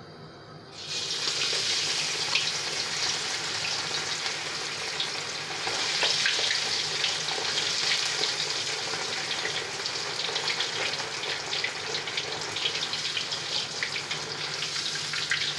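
A piece of marinated lamb loin frying in lamb fat heated to about 210 °C: a loud, steady sizzle with fast crackling spatter, starting about a second in as the meat goes into the fat.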